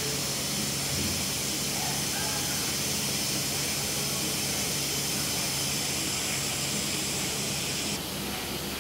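Steady hiss with a faint low hum underneath, dropping slightly in level near the end.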